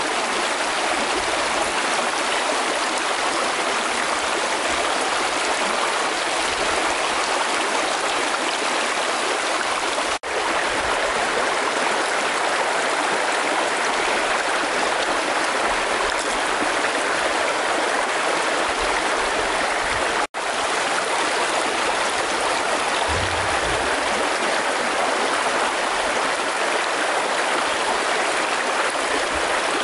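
Shallow stream rushing over rocks, a steady even wash of water. The sound cuts out for an instant twice, about ten and twenty seconds in.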